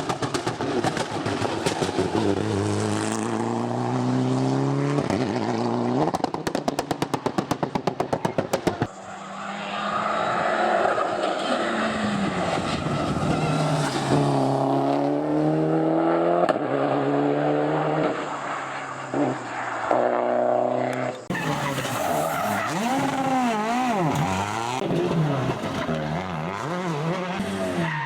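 Mitsubishi Lancer Evo 9's turbocharged four-cylinder engine pulling hard at full throttle, its pitch climbing and falling back again and again as it shifts up through the gears. For a few seconds in the first third it gives a rapid run of sharp pops. The sound changes abruptly twice.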